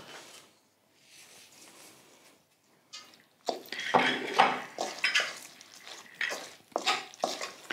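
Metal spoon scraping and clinking against a stainless steel mixing bowl as it stirs a wet rice and chopped tomato filling. The stirring starts about three and a half seconds in, after a near-quiet stretch with a single click.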